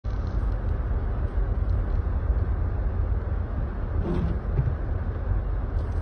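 Car driving slowly on a snow-covered road: a steady low rumble of engine and tyre noise.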